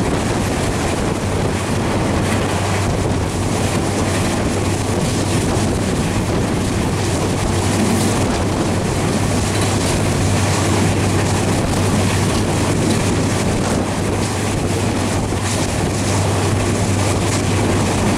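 Steady running noise of a passenger train at speed: wheels and carriages rumbling, with a constant low hum underneath and wind buffeting the microphone held out beside the coach.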